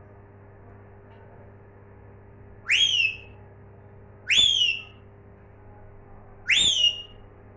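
A parrot whistling three times, each whistle a quick upward sweep that dips slightly at the end, spaced about two seconds apart.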